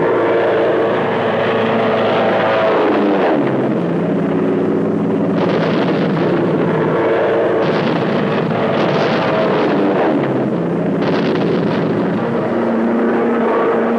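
Aircraft engine running in flight, its note shifting in pitch and gliding down about three seconds in, with several brief bursts of hiss in the second half.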